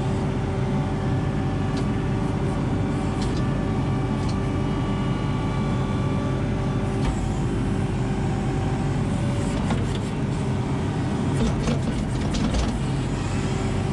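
ASV RT-40 compact track loader's diesel engine running steadily under working load, heard from inside the cab as the machine tracks over soil and works the bucket. A few scattered knocks and clicks, more of them near the end.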